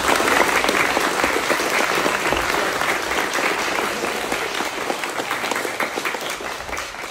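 A crowd applauding, dense clapping that slowly dies down toward the end.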